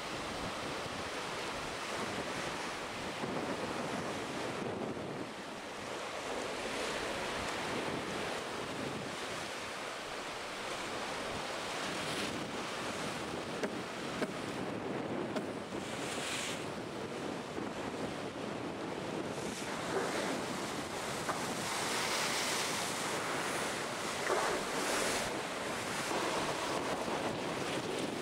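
Sea rushing and breaking along the hull of an IMOCA 60 racing yacht under sail, with wind buffeting the microphone. Two brief sharp clicks about halfway through.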